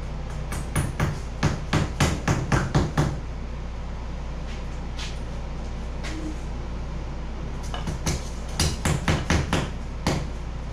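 A hand tool worked against the foam gunnel of a foam-and-fabric kayak: two runs of quick rhythmic taps, about four a second, one early and one near the end, over a steady low hum.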